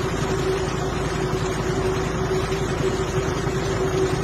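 Armored truck's engine running at idle, a steady hum with a low rumble.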